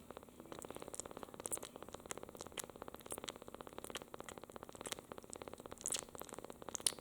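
A two-week-old kitten purring steadily while licking and sucking on a finger, with small wet clicks and smacks from its mouth scattered throughout.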